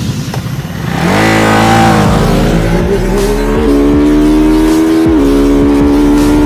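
Ducati Monster 937's Testastretta V-twin engine held on a two-step launch limiter, burbling and popping, then the bike launches about a second in. The engine note climbs hard under acceleration and drops in pitch at two upshifts, near the middle and about five seconds in.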